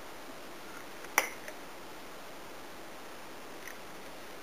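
Spice jars being handled: one sharp click about a second in and a fainter click just after, over a steady background hiss.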